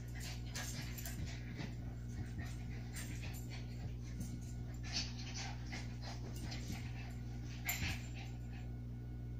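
Two small dogs, a Shih Tzu and a Havanese, play-fighting on a bed: short dog vocalisations and scuffling on the bedding come and go, loudest about five seconds in and again just before the end, over a steady low hum.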